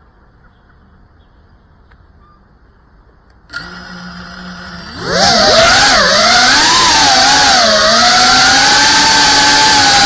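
FPV racing drone's electric motors: a steady hum as they spin up to idle about a third of the way in, then a loud whine from about halfway as the throttle comes up for takeoff, its pitch rising and wavering with throttle.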